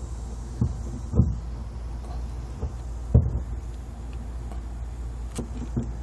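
A few sharp clicks and taps as needle-nose pliers grip and bend a cotter pin through a steel clevis pin on a clevis hook, the loudest about a second in and about three seconds in. A steady low rumble runs underneath.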